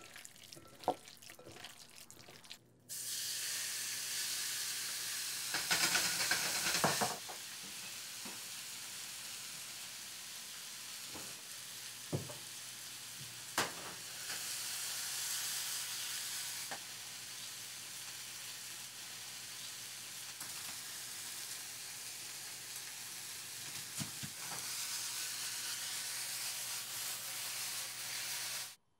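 Meat frying in a pan: a steady sizzle that starts abruptly about three seconds in, swells briefly, and stops suddenly near the end, with a few sharp clinks of utensil on pan. Before the sizzle, faint wet handling of raw meat.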